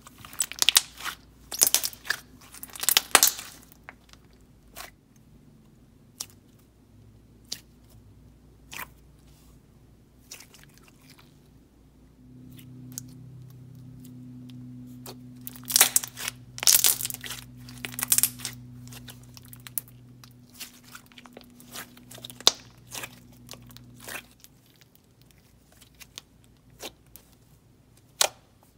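Clear butter slime with pink clay worked in, squeezed and pressed by hand, making clusters of sharp wet clicks and pops. The clicks come thickest in the first few seconds and again around the middle, with single clicks in between.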